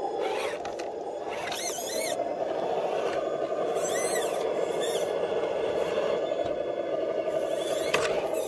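Traxxas TRX-4 RC scale crawlers driving slowly over tree roots: a steady electric motor and gear whine, with short high squeals a few times.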